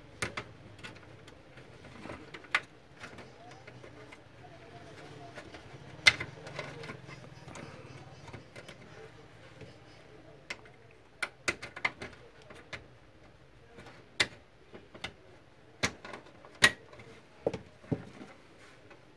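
Irregular sharp clicks and knocks of the HP LaserJet 1320's plastic covers and control panel being handled and snapped into place. The loudest click comes about six seconds in, with a cluster of clicks in the second half.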